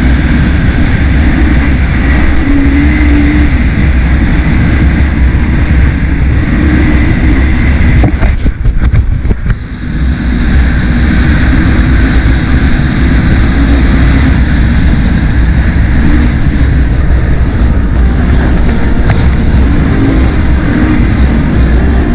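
Race quad's engine running hard under throttle over dirt, loud and steady. About eight seconds in the sound briefly drops away for a second or two, then comes back at full strength.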